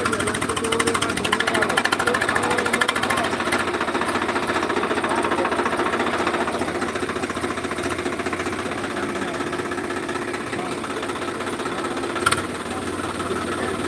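Diesel tractor engine running hard with a rapid, steady clatter as a tractor works to tow another out of deep mud. One sharp knock near the end.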